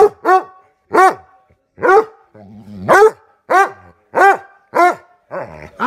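Redbone coonhound barking in a burst of about nine short, loud barks, with a low growl between barks around the middle. The dog is worked up and mad in rough play with its owner.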